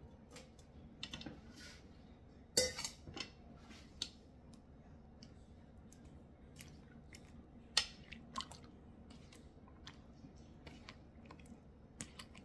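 Hands mixing dry flour in a ceramic bowl: soft rustling and scraping with scattered small clicks. Sharp knocks of bowl against bowl stand out about two and a half seconds in and again near eight seconds.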